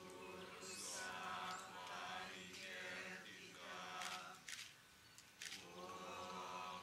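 Voices chanting a Balinese Hindu prayer mantra in long held phrases over a steady low tone, with a few short sharp clicks about four to five and a half seconds in.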